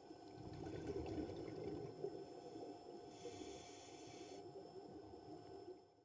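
Muffled underwater ambience heard through a camera housing: a low, murky water noise that swells in the first two seconds, with a faint steady hum, and a brief hiss about three seconds in. It cuts off at the end.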